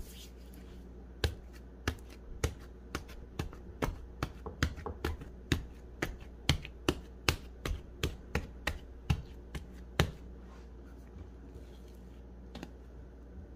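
Hands punching down a risen bread dough on a silicone baking mat, knocking the air out. It makes a run of sharp slaps, about two a second, for roughly nine seconds, then stops.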